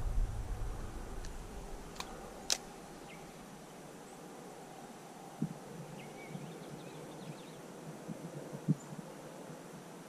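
Quiet outdoor ambience: a low rumble fades out over the first second or so, then two sharp clicks a half-second apart, a few soft thumps and some faint high chirps.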